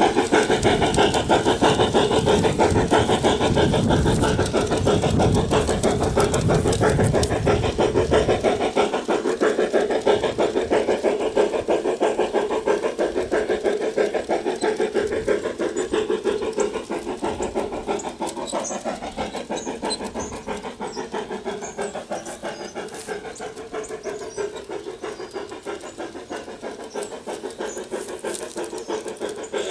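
Sound system of a Bachmann K27 2-8-2 garden-scale model steam locomotive playing rapid, even steam chuffs through its speaker as it runs, fading gradually as the engine moves away. A low rumble under the chuffs stops about eight seconds in.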